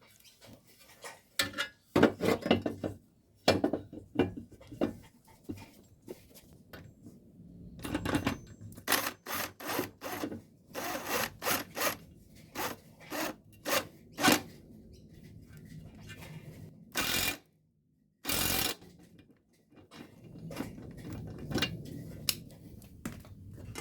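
Hand-tool work fitting a lawnmower blade: irregular knocks, clinks and scrapes of metal parts, with short rasping runs, and two longer loud rasping bursts about a second apart near the end.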